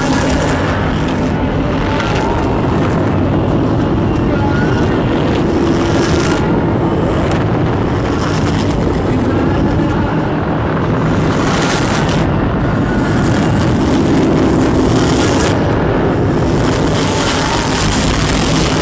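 Experimental noise-music recording: a loud, dense wall of rumble and hiss with low droning tones held underneath. The high hiss drops away briefly several times.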